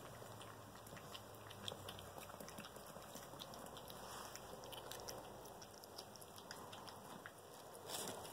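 A puppy eating soft food from a small tin bowl: faint chewing with many small scattered clicks.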